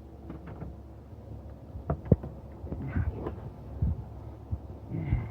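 Scattered clicks and knocks of hand tools and parts being worked on the engine while the rear ignition coil is taken off, the sharpest knock about two seconds in, over a low steady hum.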